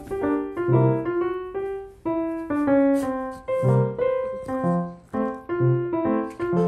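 Background music: a tune of short pitched notes with a bass note about once a second.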